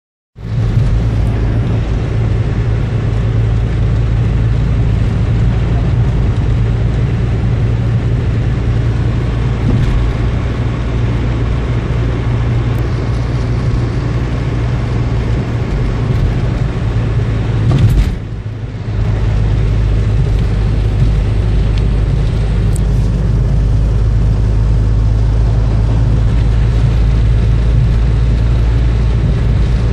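Steady engine hum and road noise inside a moving car's cabin. About eighteen seconds in there is a single knock, and the noise dips for about a second before returning.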